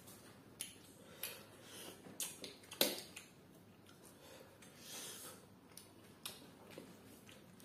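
Close-miked eating sounds: chewing, lip smacks and sticky rice worked between fingers, heard as a string of soft clicks with the sharpest about three seconds in. A short breathy hiss comes about five seconds in.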